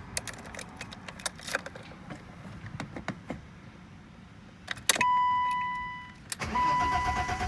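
Car keys jingling and clicking in the ignition of a BMW 325i E30, then a steady electronic warning tone that fades after about a second. Near the end the starter begins cranking the six-cylinder engine, with the tone sounding again.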